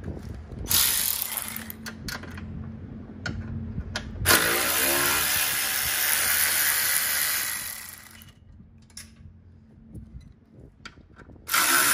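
Air ratchet with a Torx bit running, backing out the bolts that hold the cross member and intake ductwork: a short burst about a second in, then a longer run of about three and a half seconds starting about four seconds in, with clicks of the tool and bolts in between.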